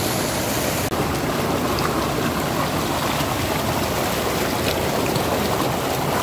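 Fast-flowing rocky river rushing over stones close to the microphone, a steady loud rush of water.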